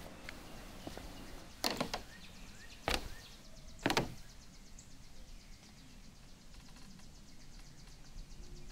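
Three heavy footsteps thudding on wooden deck boards, about a second apart, the first a quick double thud.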